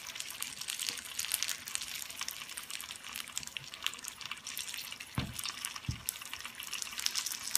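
Wontons deep-frying in hot oil: a steady sizzle full of fine crackling. Two short, dull low thumps come about five and six seconds in.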